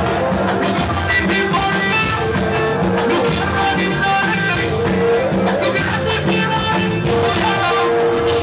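Loud rai music playing without pause.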